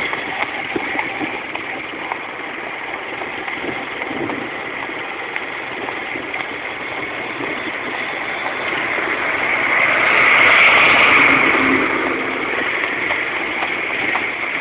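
Road traffic: vehicle engines and tyre noise running steadily. The noise swells louder about ten seconds in and eases off a couple of seconds later.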